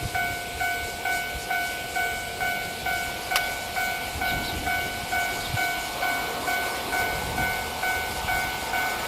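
Japanese railway level crossing alarm ringing steadily, about two rings a second, over a low rumble of rail noise.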